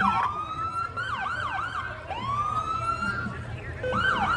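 Emergency-vehicle sirens wailing. Each slow rising wail alternates with a rapid yelp of repeated sweeps at about four a second.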